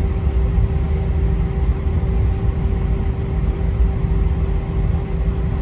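Steady airliner cabin noise inside an Airbus A321: a constant low rumble with a steady hum running through it.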